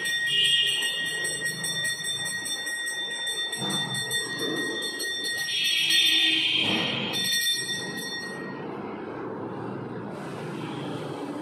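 Temple bell ringing steadily during the puja before the goddess's shrine, with louder swells near the start and a little past the middle; the ringing stops about three-quarters of the way through.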